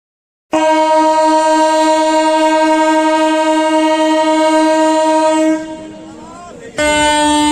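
Indian Railways train horn sounding one long, steady, high blast of about five seconds, starting suddenly about half a second in. After a short, quieter lull, a second blast begins near the end.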